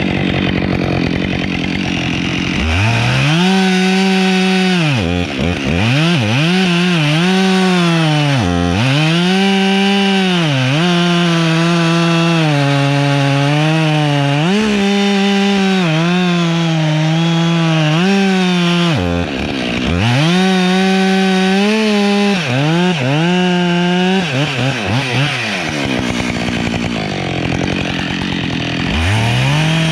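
Husqvarna 572XP two-stroke chainsaw at full throttle cutting through pine, its engine note sagging again and again as the chain loads up in the wood and recovering between cuts, with a few brief drops off the throttle.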